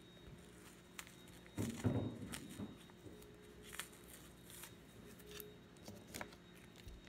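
Hands untying a knotted cloth snake bag and peeling blue tape off it: faint rustling of fabric and tape with scattered small clicks, loudest about two seconds in, over a low steady hum.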